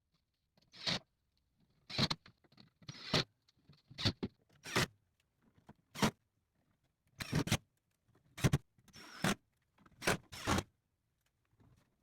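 Cordless drill/driver whirring in about ten short bursts, roughly one a second, driving pocket screws into wood.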